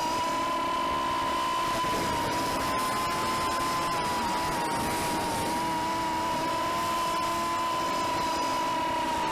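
Cobra 2208 2000kv brushless motors of a ZMR250 quadcopter spinning at steady throttle: a high whine with a slight waver in pitch. Brief ticks break in here and there, the little hiccups the owner is trying to troubleshoot.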